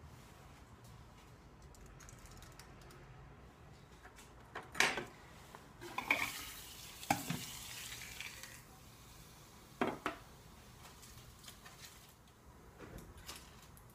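Lab ware being handled: a few sharp clinks and knocks of metal and ceramic, with about two seconds of hissing clatter partway through.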